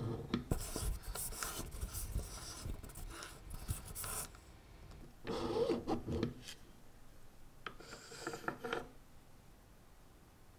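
Steel caseback being fitted and screwed onto a Rolex Milgauss case, with scraping, rasping metal-on-metal strokes in three bursts. The longest burst comes first, then two shorter ones follow around the middle.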